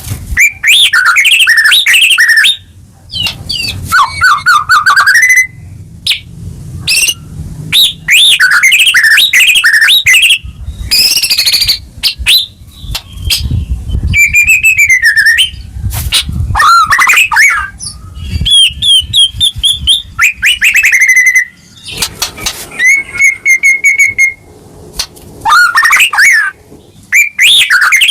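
White-rumped shama in full song, loud and continuous: varied rich whistles, fast rising and falling runs and rapid trills, broken by short pauses. One phrase is a held steady whistle. A low rumble sits under the song at times.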